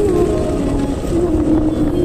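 Background music with a held, slowly sliding melody over a steady low rumble.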